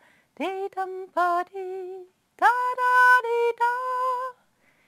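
A woman singing a slow, wordless melody on syllables like 'di-dam-pa-di' and 'da-da-di-da', unaccompanied. It comes in two phrases with a short break about two seconds in.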